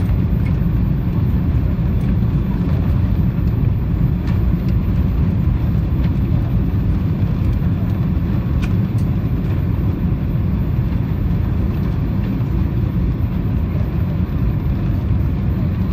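Steady low rumble of cabin noise inside an Airbus A340 during its landing approach: engine and airflow noise, even in level throughout.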